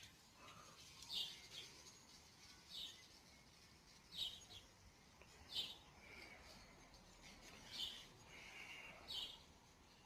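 A bird chirping faintly, one short high call repeated about every one and a half seconds, about six times.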